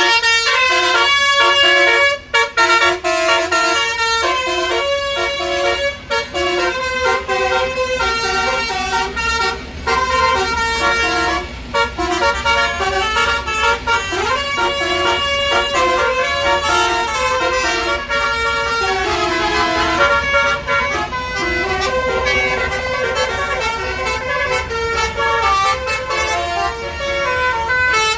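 A tour bus's roof-mounted 'basuri' multi-tone air horns playing a tune: a string of loud held notes that keep changing pitch.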